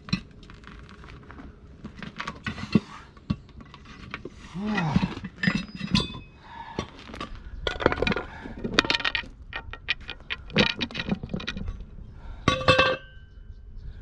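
Metal pry bars clanking and clinking against a metal wheel rim as a stubborn tire is levered off: a string of sharp metallic knocks, and one clank near the end that rings on briefly.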